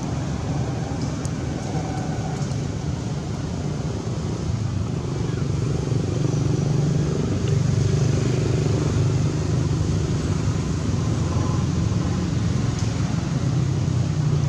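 Low, steady engine rumble of a motor vehicle running, growing somewhat louder about five seconds in.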